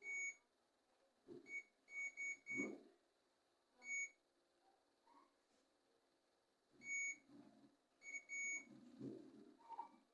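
Digital multimeter in continuity mode giving short high beeps, about nine of them, some in quick runs, as the probes touch points on a phone motherboard while checking for short circuits. Faint handling noise between the beeps.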